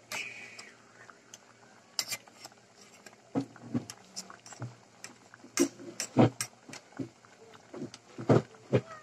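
Metal spoon clinking, knocking and scraping against a stainless steel pot of simmering coconut-milk catfish stew, an irregular series of sharp knocks, the heaviest about six and eight seconds in.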